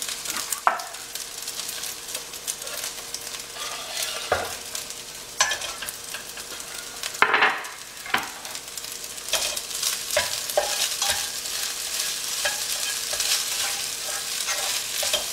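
Fried rice sizzling in a non-stick sauté pan over a gas flame, with the repeated scrape and tap of a plastic slotted spatula stirring it through as chopped scallions are mixed in. The strongest scrape comes about seven seconds in.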